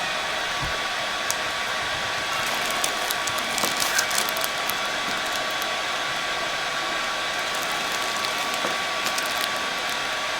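Handheld electric massager running with a steady motor buzz as it works over the trapezius muscles.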